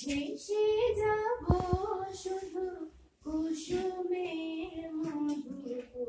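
A woman singing a song unaccompanied, holding long notes that glide between pitches, with a short break between phrases about halfway through.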